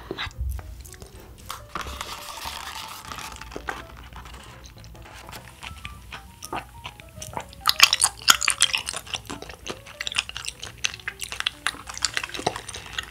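Quiet background music with a run of sharp plastic clicks and crackles, loudest about eight seconds in, as a plastic straw is pushed through the sealed film lid of a plastic bubble tea cup.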